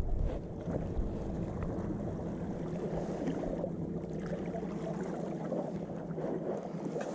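A steady low engine drone under wind and water noise, with a few faint ticks.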